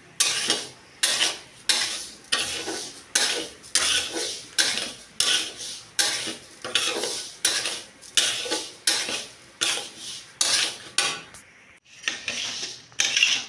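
Metal spatula scraping and stirring dry mung dal around a metal karahi in steady strokes, about one and a half a second, with the lentils rustling across the pan at each stroke; there is a short pause near the end. The dal is being dry-roasted until lightly reddish.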